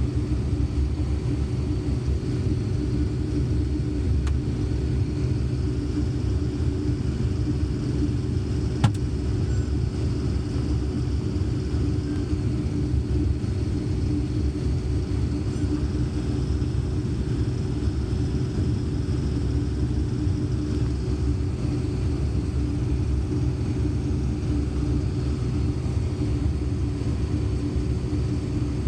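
Combine harvester running steadily while harvesting corn: a constant low rumble with a steady hum. A single sharp click sounds about nine seconds in.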